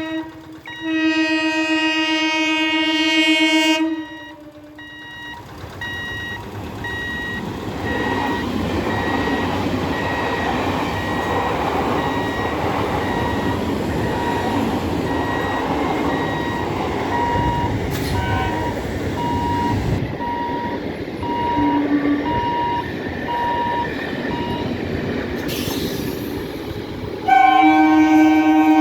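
Electric multiple unit (EMU) local train horn sounding for about three seconds, then the rumble of a train running past, with a faint steady on-off beeping over it. Another horn blast starts near the end.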